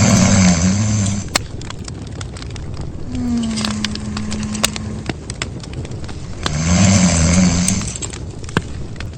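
Cartoon snoring. A loud, rough snore lasts about a second and is followed by a softer, steady, even-pitched tone. The cycle repeats with a second loud snore about seven seconds in, with faint scattered clicks.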